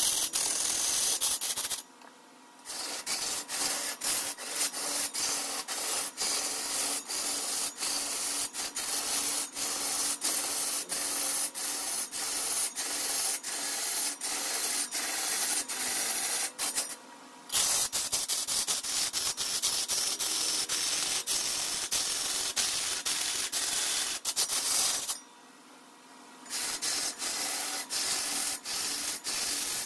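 A tool scraping against a spinning wooden workpiece on a wood lathe, in long passes with a rapid ticking running through them, broken by three short pauses.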